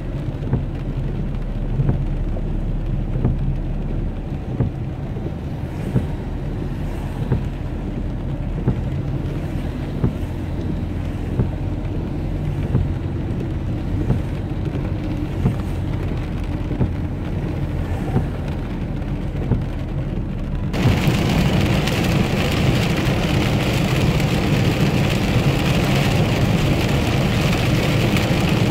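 Inside a car driving in rain: low engine and road rumble with a soft knock about every second and a half from the windscreen wipers. About twenty seconds in it changes abruptly to a louder, fuller hiss of heavy rain and tyre spray on a wet highway.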